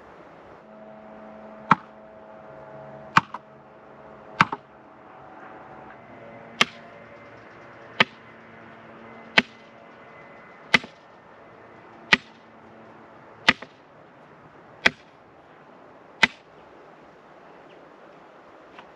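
Hammer blows on the top of an upright bamboo post, driving it into the ground: eleven sharp, evenly spaced knocks about one and a half seconds apart that stop a few seconds before the end.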